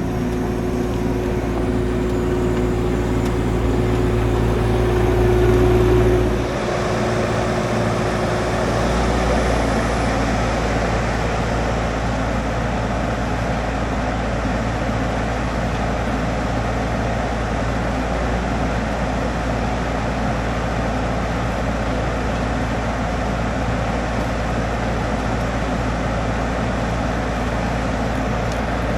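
An engine running steadily. About six seconds in, its pitch and note change abruptly and it carries on at a steady, slightly lower level.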